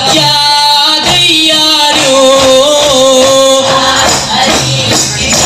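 Arabana muttu: male voices singing long held notes to the beat of arabana, hand-struck frame drums, played together by the group.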